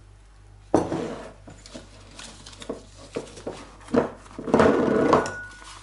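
Plastic piping bag and cling film crinkling and rustling as they are handled, in a string of short bursts. The loudest bursts come about a second in and near the end.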